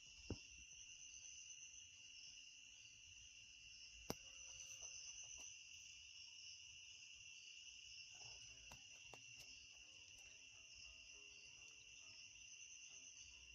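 Faint steady high-pitched insect chirring, with a few sharp clicks: one shortly after the start, one about four seconds in and fainter ones later.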